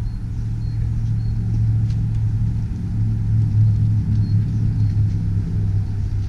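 New Holland 175B excavator's diesel engine running with a steady low rumble that swells a little in the middle.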